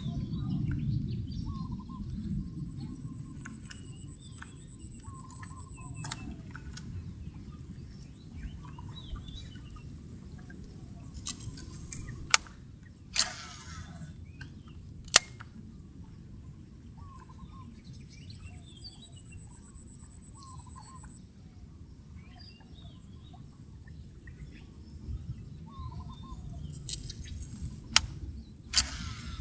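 Outdoor ambience: a low steady rumble, a high thin whine that comes and goes, scattered short bird-like chirps, and a few sharp clicks, two close together about 12 to 13 seconds in and two more near the end.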